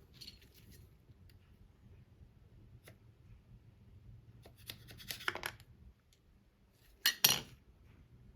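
Light clicks and scrapes of small hard objects being handled, bunched about five seconds in, then one sharp, louder snip or snap near seven seconds.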